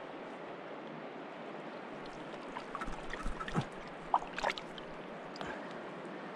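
Shallow river water running steadily over gravel and stones, with a brief flurry of splashing and knocking about halfway through.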